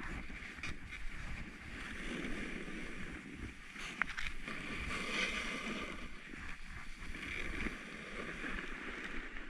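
Snowboard sliding and scraping over packed, chopped-up snow: a steady hiss and rumble that rises and falls as the rider turns. There is one sharp click about four seconds in.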